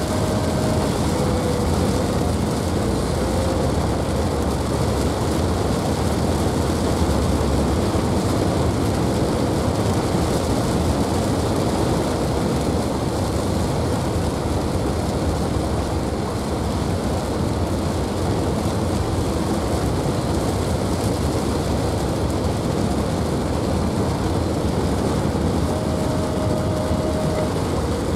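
Heavy rain hitting the roof and windshield of a moving car, heard from inside the cabin as a steady rush mixed with tyre and road noise.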